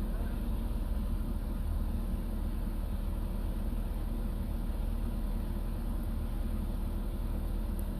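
A motor running steadily with an even low hum, no change in speed.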